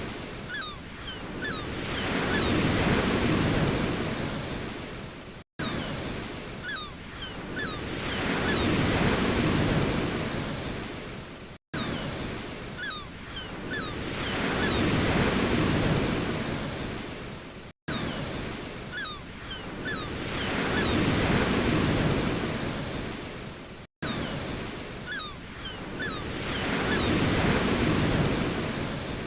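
Ocean waves breaking and washing up a shore, one wave swelling and fading about every six seconds. The same short recording repeats in a loop, with a brief dropout at each join.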